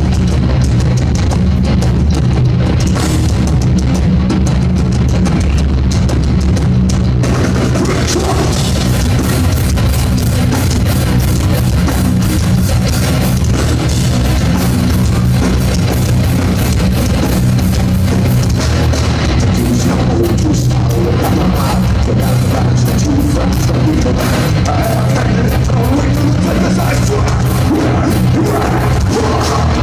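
Nu-metal band playing live, heard loud and bass-heavy from the crowd: distorted guitars, bass and drum kit, with the cymbals filling in about eight seconds in.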